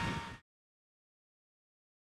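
Loud dyno-run noise of a Mercedes 300TD turbo diesel fading out within the first half second, then dead silence.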